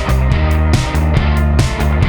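Background rock music with a steady beat, bass and guitar.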